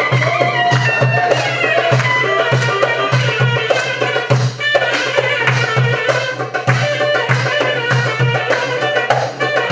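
Live Turkish folk dance tune (halay oyun havası): a clarinet plays an ornamented, gliding melody over a steady hand-drum beat.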